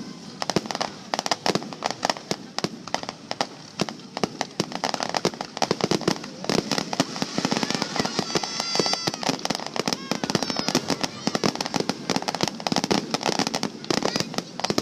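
Fireworks finale: a dense, continuous barrage of bangs and crackling shells bursting many times a second.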